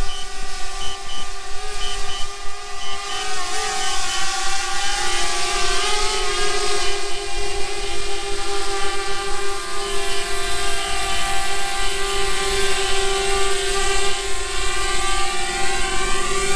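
Small quadcopter drone's propellers buzzing close by as it hovers and descends, a steady high whine that wavers slightly in pitch. Short high beeps sound in pairs through the first half.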